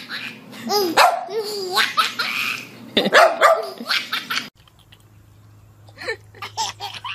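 A dog barking in a quick series while a baby laughs heartily between the barks, until the sound cuts off suddenly about four and a half seconds in. After that comes a much quieter stretch with a steady low hum.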